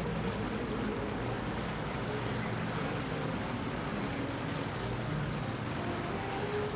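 Steady low rumble of boat engines out on the bay, under an even wash of background noise with faint wavering tones.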